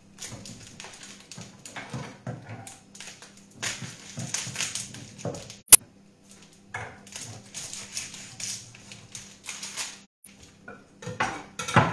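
Kitchen handling noises: rustling and small knocks of dishes, utensils and containers on a worktop, with one sharp clink about halfway through and a few louder knocks at the end.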